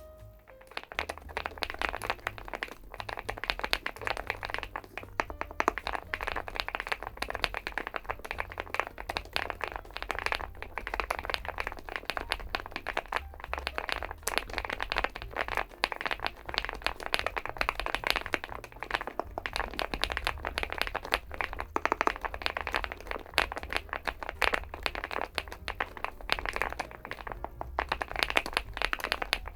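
Continuous fast typing on a Weikav Stars80 gasket-mounted aluminium TKL mechanical keyboard: a dense run of rounded keystroke clacks, the soft 'kotokoto' typing sound.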